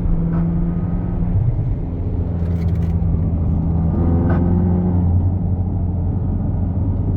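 Ferrari California's V8 running at road speed, its note shifting about four seconds in, with a short sharp tick about a third of a second in and again about four seconds in. The ticks fit a mild crunch from the rear that comes on deceleration in fifth gear, a noise the owner first took for worn suspension and later feared was the transmission.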